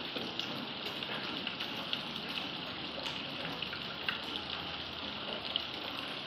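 Rain falling together with a thin stream of runoff splashing off a rock ledge onto stones: a steady watery hiss dotted with small drop ticks.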